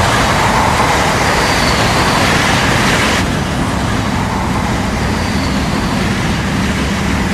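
Train running past close by: a loud, steady rumble and rattle.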